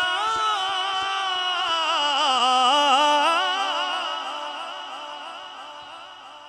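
A man's voice drawing out one long, ornamented note of melodic Quran recitation (tilawat), the pitch wavering and dipping in embellishments. About halfway through it trails off slowly.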